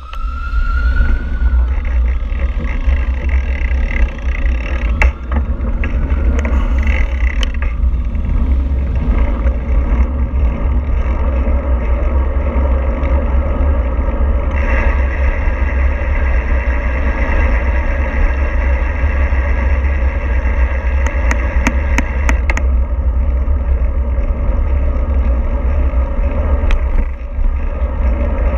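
A vehicle under way, giving a steady mix of engine and road noise with a heavy low rumble throughout.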